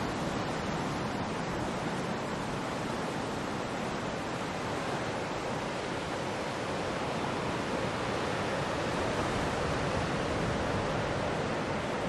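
Ocean surf: a steady, even wash of breaking waves with no single distinct crash.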